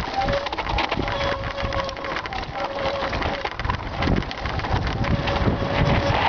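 Mountain bike tyres crunching over loose rock and gravel on a steep descent, with dense rattling knocks from the bike and low bumping rumble throughout.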